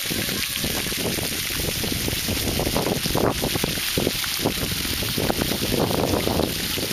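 Splash-pad fountain jets spraying from the ground with a steady hiss, while wind buffets the microphone in uneven gusts.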